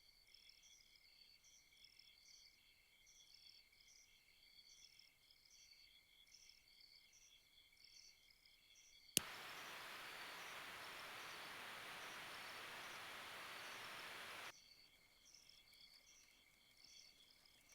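Crickets and other insects chirping in a steady, rhythmic chorus. About nine seconds in, a sharp click sets off a loud, even hiss that drowns them out for about five seconds and then cuts off suddenly.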